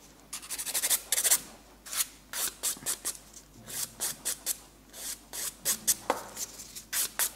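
A hand nail file rasping across fingernails in quick back-and-forth strokes, in short runs with brief pauses, as the nails are shaped.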